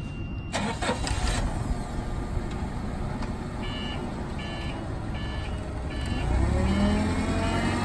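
Propane Cat GP25 forklift's engine running, with its reverse alarm beeping at an even pace, about one beep every 0.7 seconds, from about three and a half seconds in. Near the end the engine speeds up and rises in pitch.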